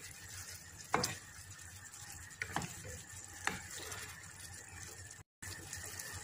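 Wooden spatula stirring chicken livers and vegetables in a sauce in a nonstick frying pan over low sizzling, with three light knocks of the spatula against the pan.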